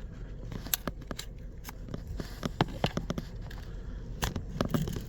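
A thin pry tool (jimmy) sliding around the edge of an iPhone 11 screen along the seam with the frame, making irregular small clicks and crackles as the screen comes away.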